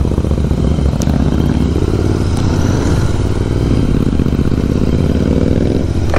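Motorcycle engines running steadily at road speed, with another motorcycle riding close alongside; a dense, even engine note over a constant hiss of road and wind noise.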